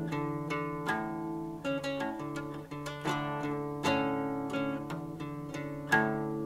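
Acoustic guitar music, picked notes and strummed chords ringing out and fading, a new note or chord about every half second, with a stronger strum near the end.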